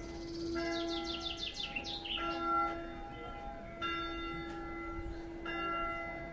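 A church bell struck four times, about once every one and a half seconds, each stroke ringing on. A bird sings a quick trill of high chirps between the first strokes.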